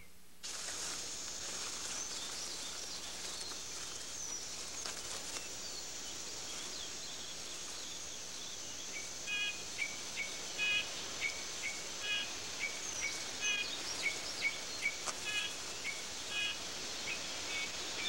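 Forest ambience: a steady high insect drone with a few faint whistles. From about halfway through come short, clipped animal chirps, repeated several times a second in clusters.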